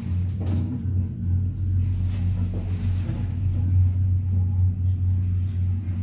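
Lift car ventilation fan running behind its metal grille, a steady low hum. A couple of short clicks sound in the first second.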